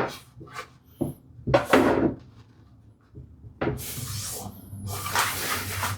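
Wooden parts knocking as they are handled, a few separate knocks, then a few seconds of rough rubbing or scraping against wood.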